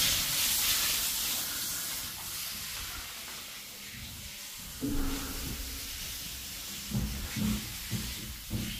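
LG 5 kg washing machine running, its drum noisy. A hiss fades over the first few seconds, then comes a handful of short, low knocks.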